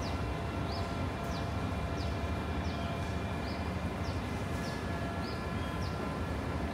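A bird calling a short, high chirp over and over, about three every two seconds, over a steady low rumble of outdoor background noise.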